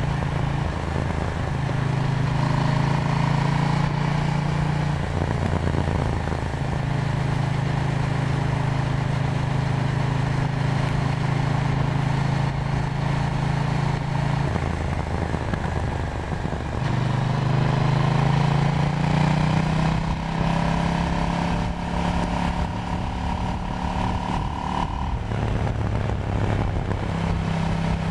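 KTM Duke 790's parallel-twin engine running steadily while under way, its note dropping and changing pitch a few times, about 5, 15 and 25 seconds in, as the throttle is eased or gears are changed.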